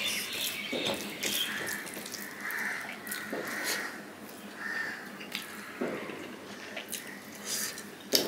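Close-miked wet eating sounds: fingers squishing and mixing rice with chicken curry on a plate, with mouth chewing and smacking, in many short irregular clicks.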